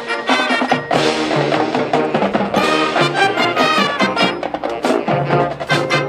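Marching band playing: brass melody over drums and percussion strokes.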